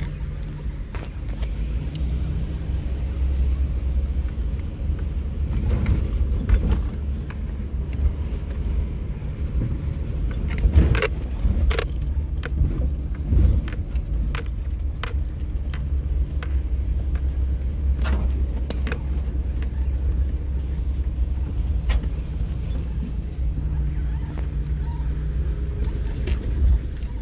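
A vehicle driving on a rough dirt road, heard from inside the cab. There is a steady low rumble from the engine and tyres, and frequent clinking rattles and knocks as it goes over bumps. They are thickest about halfway through.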